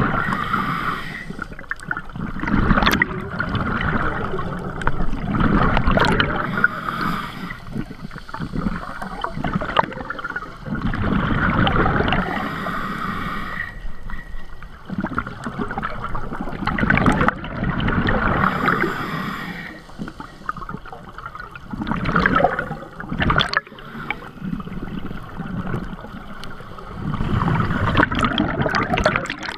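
Scuba diver breathing through a regulator underwater: a hissing inhale alternates with a gurgling rush of exhaled bubbles, in slow cycles every few seconds.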